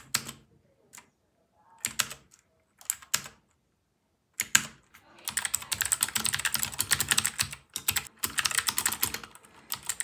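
Royal Kludge RK84 mechanical keyboard with clicky blue switches: a few single key presses about a second apart, then fast, continuous typing from about five seconds in.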